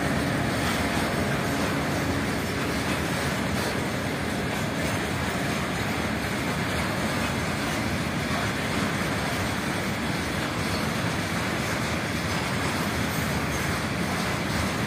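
Freight train of tank wagons rolling past: steady wheel-on-rail noise from the passing cars.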